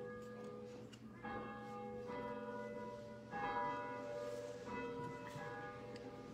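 A bell struck four or five times, about a second apart, each strike ringing on into the next.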